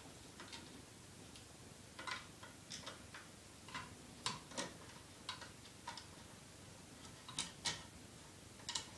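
Irregular light metallic clicks and ticks of a Phillips screwdriver working the screws that hold a ceiling fan's blades.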